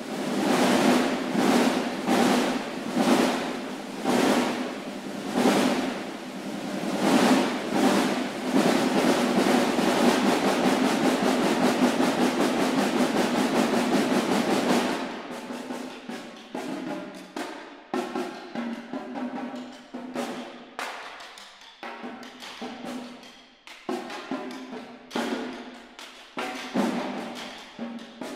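A snare drum ensemble playing: a run of rolls that swell and fade about once a second builds into one loud sustained roll, which stops abruptly about halfway through. Scattered, irregular strokes and short rolls follow.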